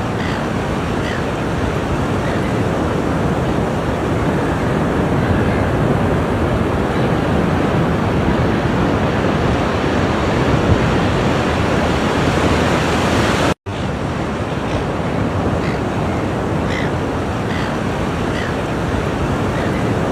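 Ocean surf: a steady, continuous rush of waves breaking and washing on a shore. The sound cuts out for an instant about two-thirds of the way through, then resumes.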